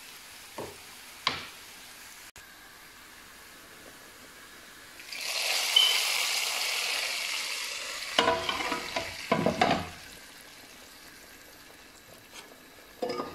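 Hot tempering oil with fried garlic, onion and dried chillies poured into a pot of cooked chana dal, hitting it with a loud sizzle about five seconds in that dies away over a few seconds. Several clattering metal knocks follow, then another near the end.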